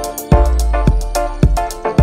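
Background music with a steady beat: a strong bass drum hitting about twice a second under sustained melodic tones.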